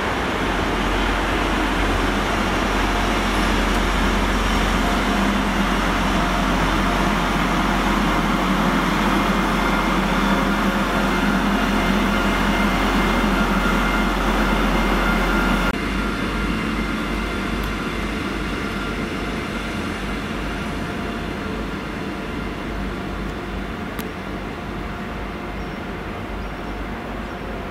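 Transport for Wales Class 175 diesel multiple unit running past close by, a steady loud rumble of engines and wheels. About halfway through the sound drops suddenly to a quieter, slowly fading rumble with a low even throb, as another Class 175 approaches.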